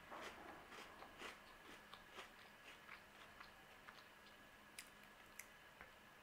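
Faint chewing of a mouthful of Oreo sandwich cookie: soft repeated crunches and mouth clicks, coming thickly at first and thinning out after about three seconds.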